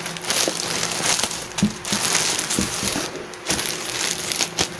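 Plastic courier pouch crinkling and rustling as it is handled, with many small crackles.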